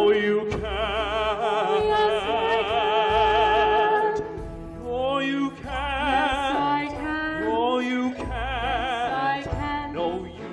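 A woman and a man singing a show-tune duet into microphones in a mock-operatic style: long held notes with wide vibrato, then shorter sung phrases with slides from about five seconds in, over a low accompaniment.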